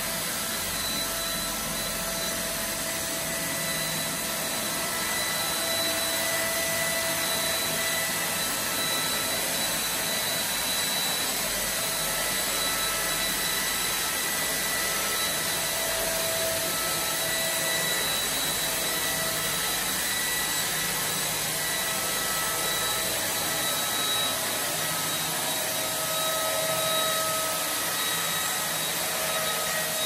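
Homemade robot vacuum cleaner running, its brushless suction fan motor making a steady rush of air with a high whine whose pitch wavers slightly.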